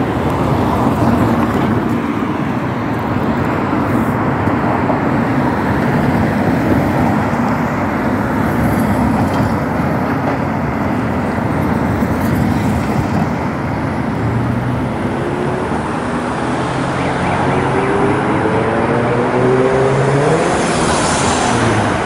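Steady city street traffic. In the second half, a vehicle's engine accelerates away, its pitch rising in several successive glides as it goes up through the gears.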